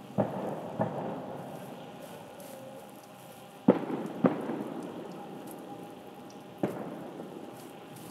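Aerial fireworks going off: five sharp bangs, two close together near the start, two more past the middle and one near the end. Each bang trails off in a long rolling rumble of echo.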